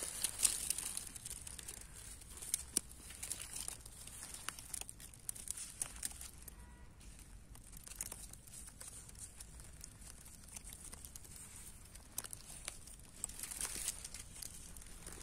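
Wild greens being picked by hand: faint crackling and tearing of leaves and stems, in scattered small snaps that come thicker near the start and again near the end.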